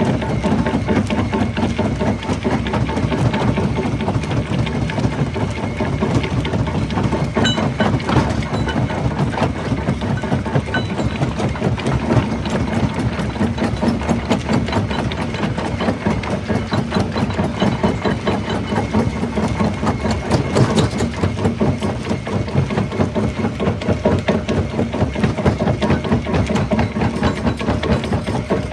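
Jaw rock crusher running steadily, a low drone under a fast, even clatter. Sharper cracks come about eight seconds in and again around twenty seconds in.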